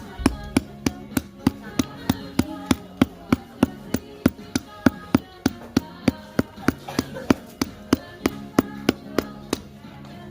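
Sharp knocks repeated at an even pace, about three to four a second, over steady low musical tones.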